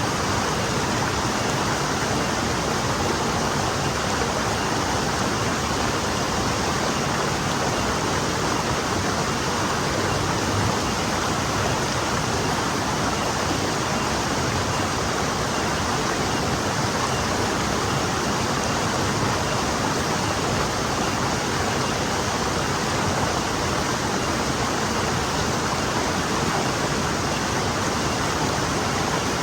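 Forest stream flowing over rocks: a steady, even rush of water with no breaks.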